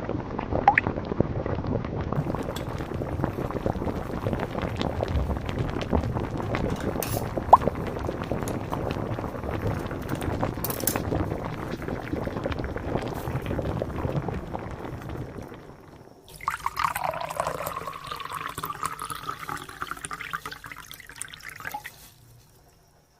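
Water running and being poured, in two stretches: a steady rush, then after an abrupt change about sixteen seconds in, a pour with a shifting tone that stops about a second before the end.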